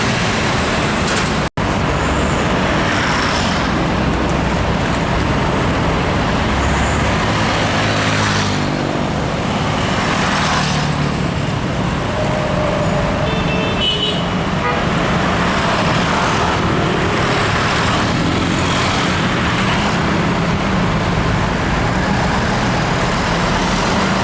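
Loud, steady road traffic with buses and other vehicles passing close by, each pass swelling and fading, and one engine note falling away about a third of the way in. A brief high-pitched horn-like tone sounds about halfway through.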